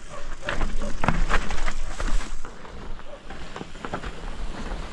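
Mountain bike rattling and knocking as it rolls down a rough, overgrown dirt trail, with irregular clatters from the bike and rumble on the microphone. The clatter is loudest for the first two and a half seconds, then eases off.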